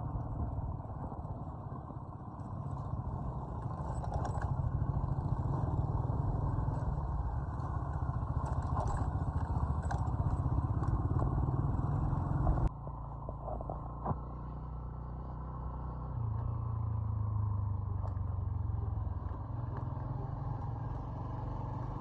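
Small motorcycle-type engine running steadily on the move, with road and traffic noise. There is an abrupt cut about thirteen seconds in, after which the engine carries on at a slightly different pitch.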